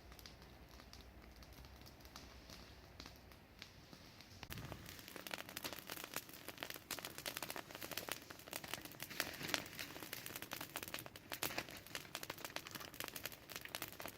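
Wood fire crackling, with irregular sharp pops and snaps. It is sparse at first and becomes much denser and louder about four and a half seconds in.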